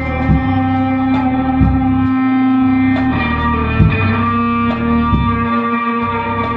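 Live rock band playing an instrumental passage: electric guitar holding long ringing chords, with a change of chord about halfway, over a few slow, sparse drum hits.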